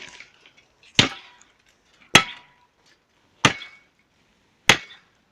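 Four chopping blows of a blade into a small tree's trunk, one about every 1.2 seconds, each a sharp crack with a brief metallic ring.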